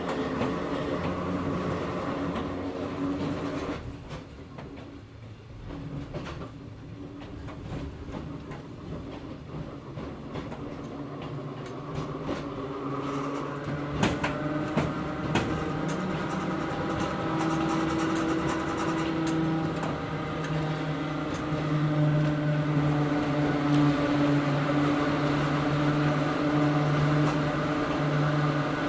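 Running sound inside a Hakone Tozan Railway Moha 1 car: its nose-suspended traction motors and gearing give a humming whine with several steady tones. It dips about four seconds in, then builds from about twelve seconds in to a steady, louder hum, with a few sharp clicks around fourteen seconds.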